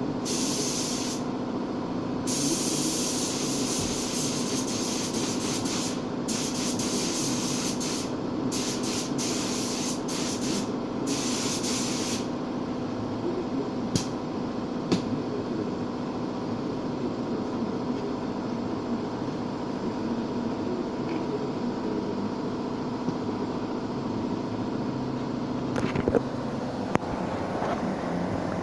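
Paint spray gun hissing in repeated on-off bursts while blending paint on a car fender. The spraying stops about twelve seconds in, leaving a steady mechanical hum broken by two sharp clicks.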